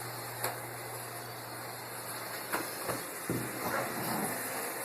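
Robot vacuum running with a steady whirring hiss from its suction fan and brushes, with a few light knocks as it bumps into things.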